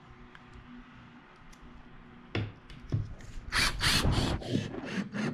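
Cordless screw gun driving self-tapping screws into the side skirt in short bursts, starting about three and a half seconds in after a quiet start and a couple of knocks.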